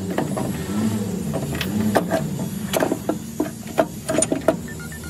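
Irregular sharp clinks and knocks of hand tools striking and handling metal tractor parts during repair work.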